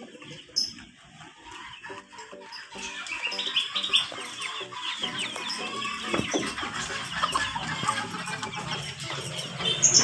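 Bird-market din of many caged birds chirping and chickens clucking, growing louder from about three seconds in.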